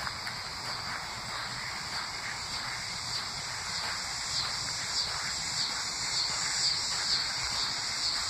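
A high, steady insect chorus that swells in soft pulses about twice a second, with quiet footsteps on a muddy path.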